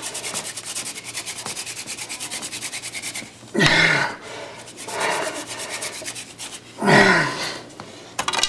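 Hand-drill friction fire: a mullein spindle spun fast between the palms in a hearth board, a dry rubbing at about seven strokes a second for the first three seconds. Then three loud, strained breaths or grunts, each falling in pitch, as the driller tires.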